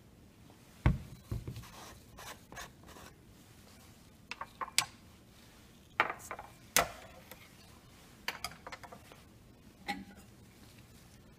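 Handling noises at a lab bench: an irregular series of light knocks, clicks and short rubbing or scraping sounds, about a dozen spread over ten seconds. The sharpest knocks come about a second in and again around six to seven seconds in.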